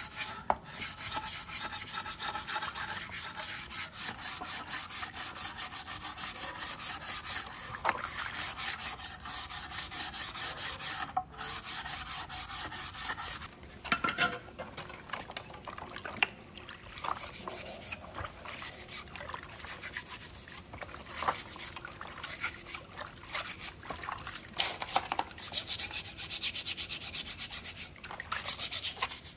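Steel-wool scouring pad scrubbing a metal telescope tube in soapy water: rapid, steady rubbing strokes. About halfway through the scrubbing breaks off with a few knocks and splashes, then goes on in sparser, irregular strokes as smaller parts are brushed in the tray.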